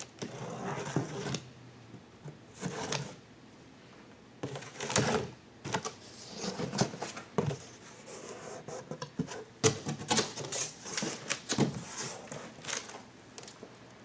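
A cardboard box and its packaging being opened and handled: irregular rubbing and scraping with scattered clicks and knocks, busiest in the second half.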